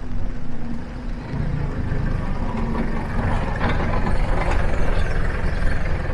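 Engine of a lifted older Toyota Hilux 4x4 pickup running at low speed as it creeps past on mud-terrain tyres: a steady low rumble that grows louder about a second in.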